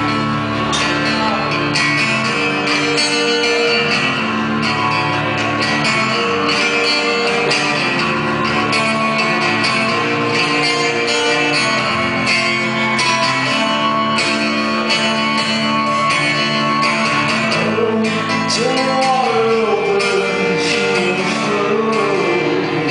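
Steel-string acoustic guitar strummed steadily in a live solo performance, with a man's voice singing over it near the end.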